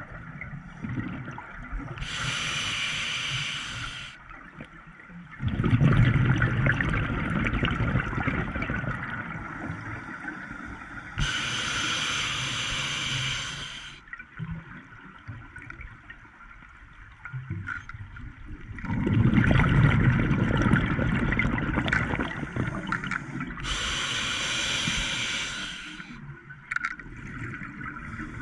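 Scuba diver breathing through an open-circuit regulator underwater: a short hissing inhale through the demand valve three times, and two longer loud rumbling bursts of exhaled bubbles.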